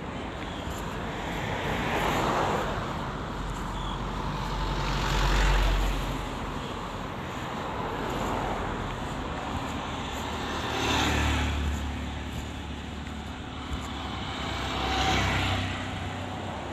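Road traffic: cars passing one after another, about five of them, each swelling and fading with engine hum and tyre noise over a steady traffic background.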